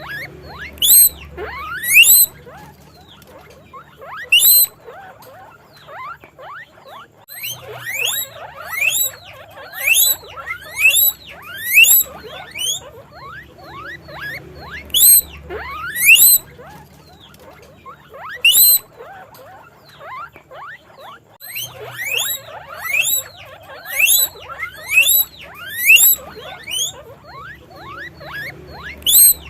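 Guinea pig wheeking: loud, repeated squeaks that each sweep sharply upward in pitch, coming about one a second in bouts with brief pauses between.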